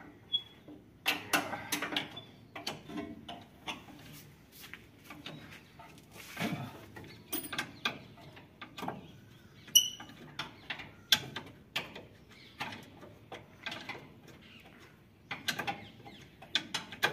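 Spanner clinking against nuts and bolts as the nuts are worked loose: irregular metallic clicks and taps, some louder knocks among them, with a short high chirp about ten seconds in.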